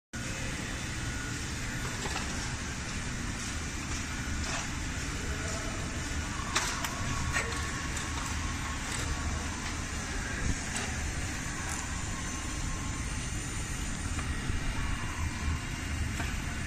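Tsugami BS20A-V Swiss-type CNC lathe running: a steady low machine hum with scattered short clicks, the sharpest about six and a half seconds in.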